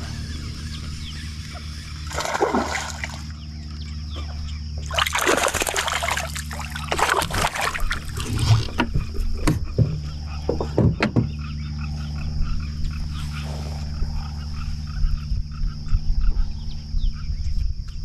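A hooked largemouth bass splashing and thrashing at the water's surface as it is fought and reeled in. It comes in several irregular bursts, the loudest between about five and nine seconds in.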